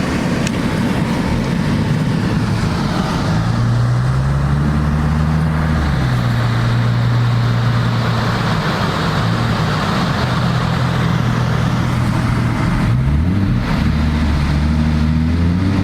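Ford Mustang's engine running while driving, its note holding steady and stepping in pitch several times, with a quick rise and fall near the end, over a steady rushing hiss.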